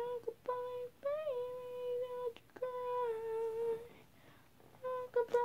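A girl humming a tune in a few long, held notes with small slides between them, broken by short pauses. A few faint clicks come in between the notes.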